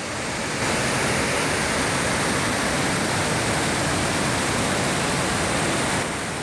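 A torrent of white floodwater rushing, a steady, loud rush of water. It comes up about half a second in and falls away near the end.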